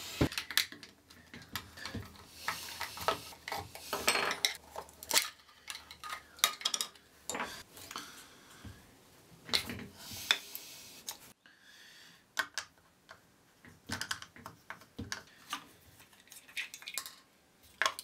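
A small black plastic USB volume dial being taken apart: irregular clicks, taps and knocks of the plastic housing halves, a screwdriver and small screws on a wooden workbench, with a few short scraping stretches.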